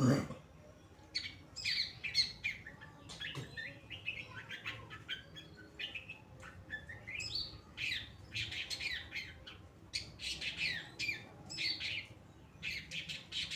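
Long-tailed shrike (cendet) singing: rapid bursts of sharp chattering notes and short rising whistles, repeated with brief pauses.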